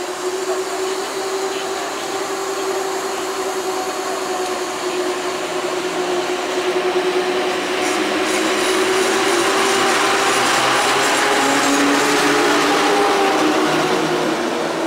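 PKP EP07 electric locomotive and its passenger coaches running into the station: a steady hum from the locomotive under a rising rumble of wheels on the rails as the coaches draw alongside, the hum dropping lower near the end.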